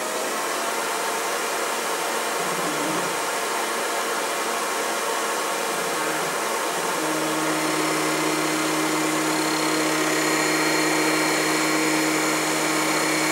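Denford Orac CNC lathe running, its spindle turning at speed with a steady whirring hiss. About seven seconds in, a steady hum and a thin high whine join as the tool feeds in and starts turning down the 6082-T6 aluminium bar.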